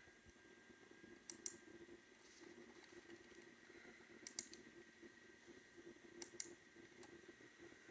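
Three faint double clicks of a computer mouse, spaced a few seconds apart, over a low steady hum.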